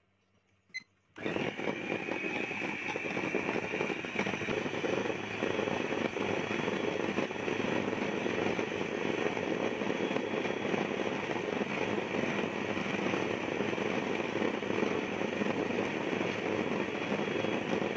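Electric hand mixer running steadily at medium speed, its beaters creaming butter and sugar in a steel bowl. The motor starts about a second in with a high whine that rises slightly as it spins up.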